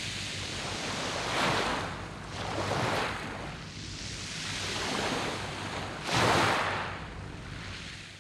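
Waves breaking and washing up a beach of round pebbles (mongdol), with three stronger surges. The sound fades down near the end.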